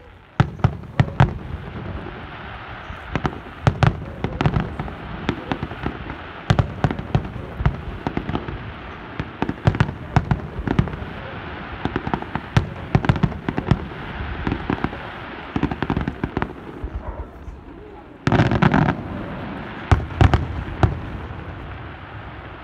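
Aerial fireworks shells bursting in a rapid, irregular string of loud bangs, with a dense volley of reports running together for under a second about eighteen seconds in.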